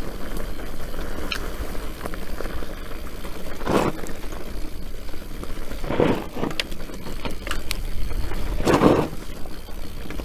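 Orbea Rallon enduro mountain bike ridden fast down a rocky dirt trail: steady tyre noise and bike rattle with a heavy rumble, broken by brief louder rushes about four seconds in, twice around six seconds and near nine seconds.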